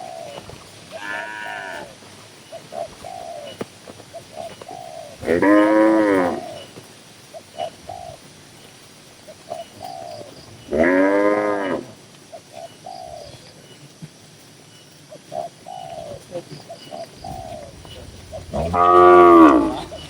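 Cattle mooing: three long, loud moos about five to seven seconds apart, with a fainter moo about a second in. Short, quieter calls come between them.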